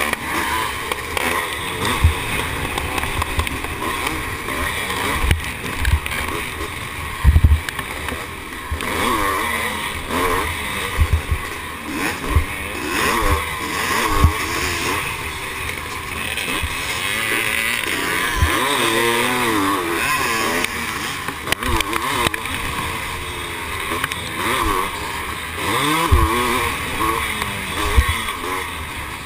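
1978 Husqvarna CR390's single-cylinder two-stroke engine racing on a dirt motocross track, its pitch rising and falling again and again as the throttle is opened and shut. Short low thumps come through every few seconds.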